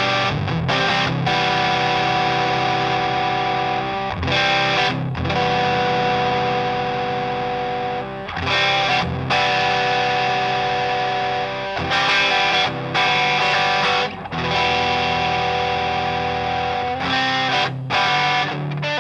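Electric guitar played through a Grind Customs FX Catch 22 overdrive pedal, a clone of the Paul Cochrane Timmy: overdriven chords struck and left to ring, re-struck every few seconds with brief breaks between them.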